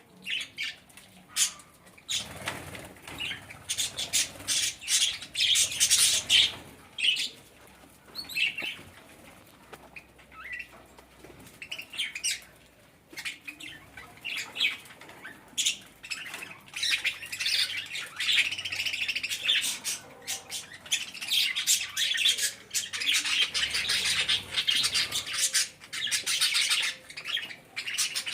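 Budgerigars chattering and chirping, with short squawks and many quick clicks and rustles mixed in.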